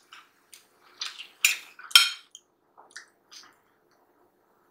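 Wet mouth sounds of eating fried chicken drumsticks: lips smacking and fingers being licked, a string of short wet clicks. The loudest two come about a second and a half and two seconds in.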